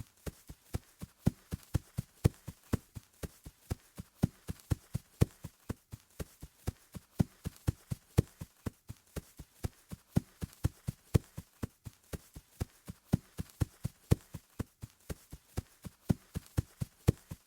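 Footsteps running on grass: quick, evenly paced footfalls, several a second, keeping a steady rhythm.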